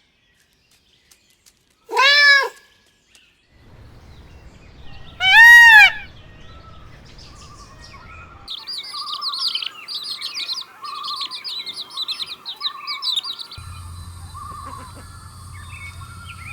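A cat meows twice, the second meow louder and longer. It is followed by birds chirping rapidly over a low hum.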